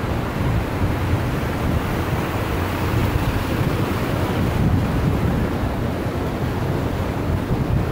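Floodwater rushing across a paved street, a steady noisy rush, mixed with wind buffeting the microphone.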